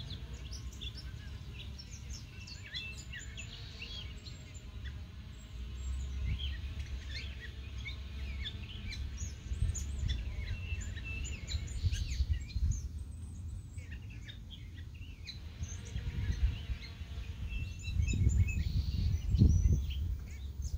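A jilguero songbird singing a long run of short, quick, high chirping notes, pausing briefly about two-thirds of the way through. A low rumble on the microphone swells near the end.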